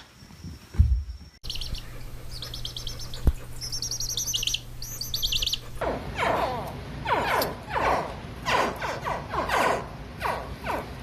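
Birds chirping: quick runs of short high chirps, then, from about six seconds in, a denser stretch of many overlapping falling calls.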